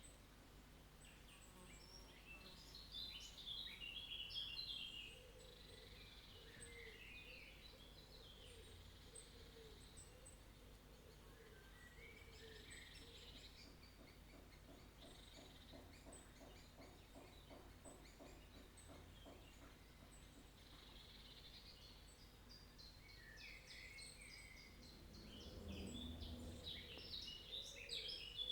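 Faint bird chirps and short twittering phrases over a low steady hum, louder about three to five seconds in and again near the end.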